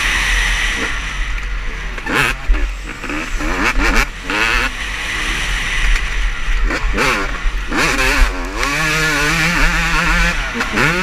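Motocross bikes racing on the track, their engines revving up and down through the gears. The revving is loudest in the last few seconds.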